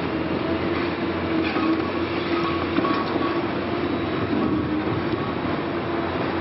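Liebherr R 960 high-reach demolition crawler excavator working, a loud, steady mechanical din with a wavering hum through it.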